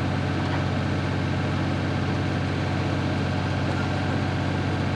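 Vehicle engine running steadily, a low even drone.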